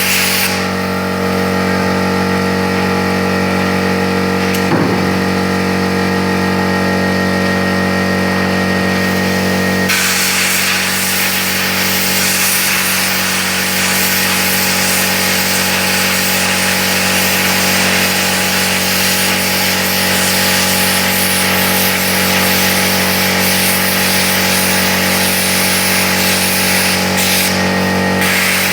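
Plasma cutter running: a steady hum under a loud hiss. The hiss eases for several seconds near the start, then comes back strongly.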